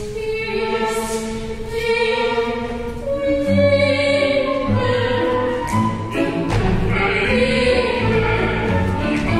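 A small classical orchestra of strings and piano playing an operetta number, with operatic singing over it in sustained, wavering notes.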